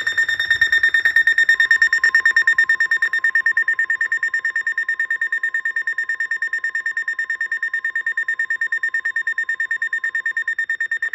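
Weather radio alert alarm beeping rapidly on a loud, high tone, the signal that a warning has just been received. A fainter, lower steady tone, the 1050 Hz weather-radio warning alarm tone, sounds beneath it from about a second and a half in until near the end.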